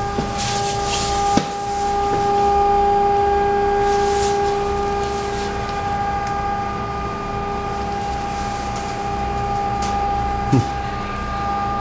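Steady machinery hum in a diesel generator room, with several constant pitched tones over a low drone, and a couple of brief knocks, about a second and a half in and near the end.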